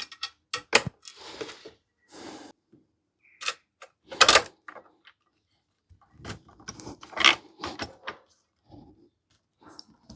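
Hand riveter and blind rivets being handled: an irregular series of sharp metallic clicks and knocks, the loudest about four seconds and about seven seconds in.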